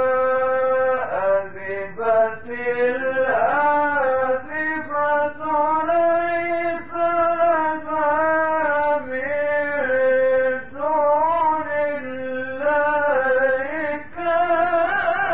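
A man's voice reciting the Quran in a slow, melodic chant. He holds long notes that slide and turn in pitch, with short breaks between phrases.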